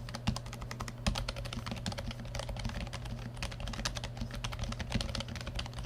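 Typing on a Keychron K7 low-profile keyboard with Gateron yellow low-profile optical switches: a fast, continuous patter of keystrokes, with a faint low hum underneath.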